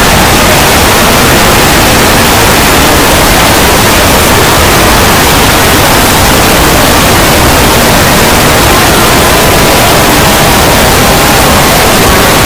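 Extremely loud, heavily distorted static-like noise, clipped at full volume and steady throughout, with faint tones buried in the hiss: an ear-rape style distorted meme sound effect.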